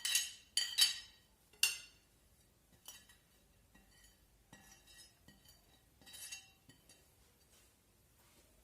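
A utensil clinking against a bowl as cooked, chopped vermicelli is added to the stuffing. Several sharp, ringing clinks come in the first two seconds, then a few fainter clinks and scrapes, and it goes quiet for the last second or so.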